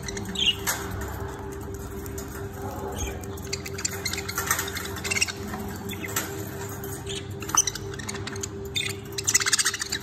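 Budgerigars chirping and chattering in a cage: scattered short calls, getting busier near the end.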